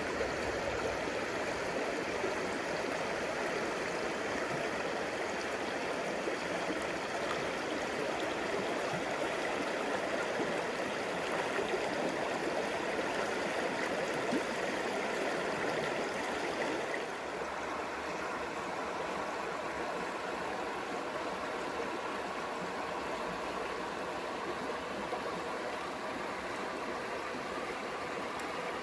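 A stream running steadily over rocks. The sound shifts and grows slightly quieter about two-thirds of the way through.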